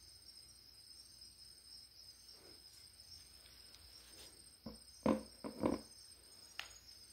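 Crickets chirping faintly and steadily. A quick cluster of about four knocks comes about five seconds in, as the metal throttle body is handled and set on a plastic stool.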